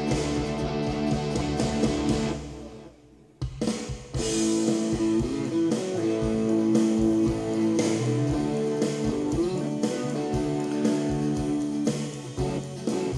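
Band music with guitar and drums, played back from recorded multitracks through the mixer. It falls away to near silence for about a second, around two and a half seconds in, then comes back in abruptly.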